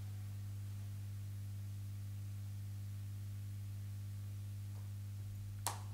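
A steady low hum with nothing else over it. Near the end, the first sharp claps of audience applause break in.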